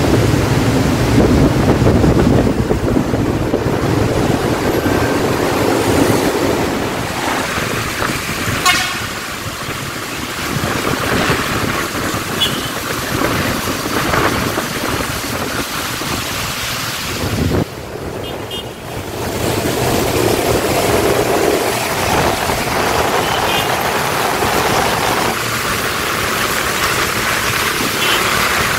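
Road traffic in heavy rain as a Mercedes-Benz coach bus pulls away, with short vehicle horn toots at several points, the first about nine seconds in.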